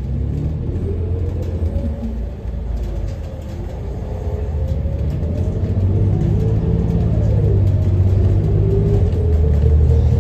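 A 2016 New Flyer XN40 natural-gas transit bus heard from inside the cabin while driving, its engine and drivetrain giving a low rumble with a whine that glides up and down in pitch. It grows louder over the second half as the bus pulls harder.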